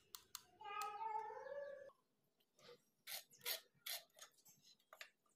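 A short, wavering animal call lasting about a second, followed by a run of soft clicks and taps.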